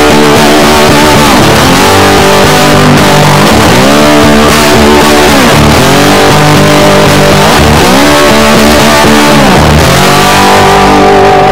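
Background music led by electric guitar, loud and steady, its notes gliding up and down in repeated bends.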